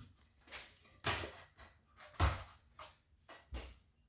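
Irregular clicks and knocks of metal hardware being handled and set in place as a cover bracket is fitted to a panic exit device, about seven in all, the loudest a little over two seconds in.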